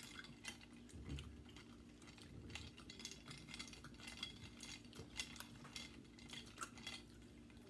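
Faint eating sounds: many quick, irregular clicks and taps from chewing and handling food, over a steady low hum.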